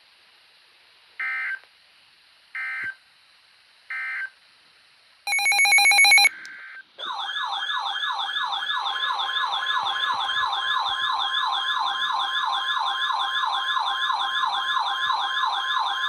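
Emergency Alert System tones. First come three short end-of-message data bursts about a second and a half apart, then a loud harsh electronic buzz lasting about a second. From about seven seconds in, a loud warbling siren-like alert tone sweeps up and down about three times a second over a steady weather-radio alert tone.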